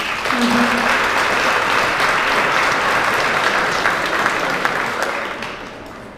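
Audience applauding, starting at once, holding steady for about five seconds, then dying away.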